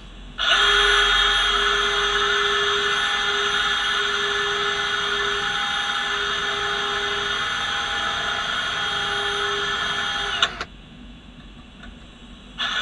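Battery-powered cordless drill running at a steady whine for about ten seconds while fixing a metal corner bracket. It stops sharply, then starts up again just before the end.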